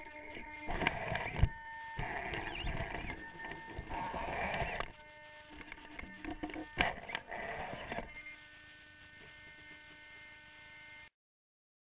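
Onboard sound of an electric RC rock crawler working over a rock course: its small electric motors whirring in spurts, with knocks and scrapes from the chassis and tyres against rock. The sound eases off after about eight seconds and cuts off abruptly near the end.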